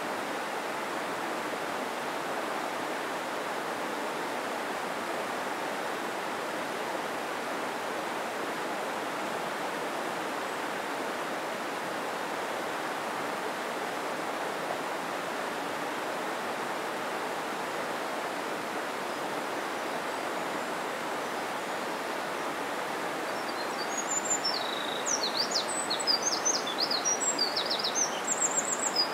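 Steady rush of a mountain stream's flowing water. Near the end a small bird sings a quick run of high chirps and trills over it.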